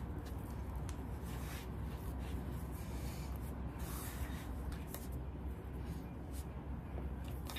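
Hands kneading crumbly flour dough on a wooden cutting board: soft, irregular rubbing, pressing and rolling sounds, the strongest about four seconds in, over a steady low hum.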